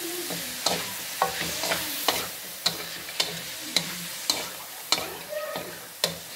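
Shredded cabbage and meat sizzling in a hot metal wok while a wooden spatula stirs and tosses them, knocking sharply against the pan roughly every half second.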